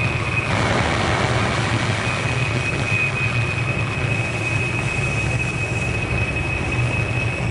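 Butane canister blowtorch burning: a steady rushing noise with a low rumble and a thin, steady high whistle; the rush grows fuller about half a second in.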